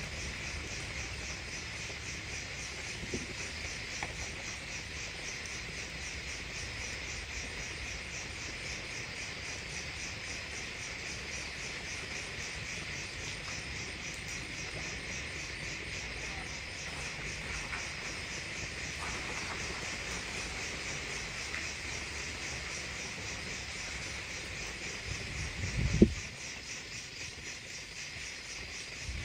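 Crickets and other night insects chirping steadily: an even, rapid pulsing trill high up over a constant shrill buzz. Near the end there is a single low thump, the loudest sound.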